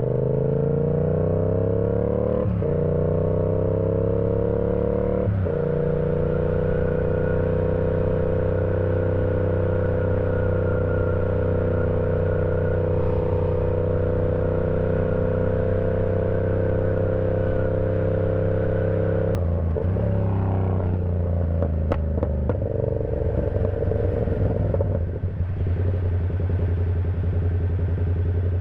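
Yamaha R7's parallel-twin engine on the move: it pulls up in pitch through two quick upshifts in the first few seconds, then holds steady cruising revs. About two-thirds of the way through the revs drop and briefly rise again, then settle at a steady lower pitch.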